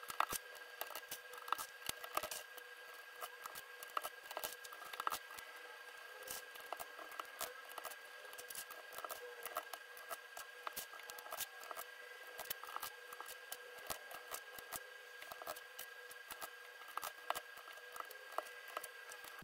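Plastic keycaps being pushed onto the KTT Wine Red switch stems of a mechanical keyboard: a rapid, irregular run of small sharp clicks and snaps, over a faint steady hum.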